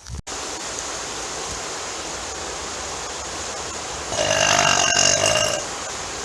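A person belches once, a long drawn-out burp of about a second and a half, starting about four seconds in, over a steady rushing background noise.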